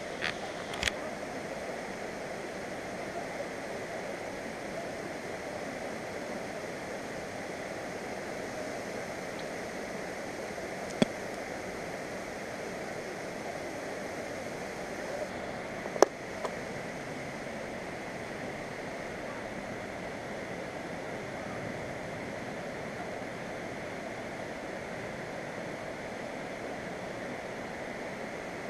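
Steady rushing of flowing water, with two sharp clicks, one partway through and another about five seconds later.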